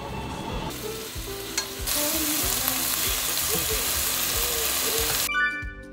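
Bulgogi sizzling as it fries in a hot pan. The hiss grows much louder about two seconds in and then cuts off abruptly near the end.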